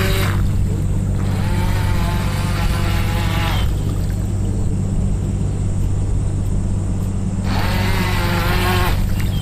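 Small electric motor of a radio-controlled boat (a 380 motor) whining at speed, the pitch gliding up and down with throttle and turns; the whine fades in the middle as the boat crosses the far side of the pond and comes back louder near the end. A steady low rumble runs underneath.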